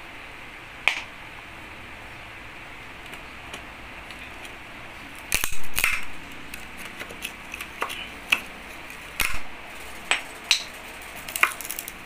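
Claw hammer knocking and prying at the planks of a small wooden packing crate: scattered sharp knocks, the loudest cluster about five to six seconds in, with single hits after it.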